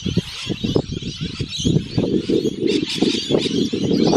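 Parrots chirping in the background, over loud, close, low rumbling and rapid soft knocks near the microphone.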